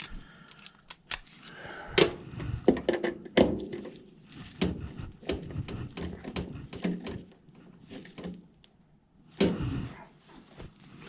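Irregular knocks and clicks of hand work on a furnace, tools and metal parts being handled and fastened by hand.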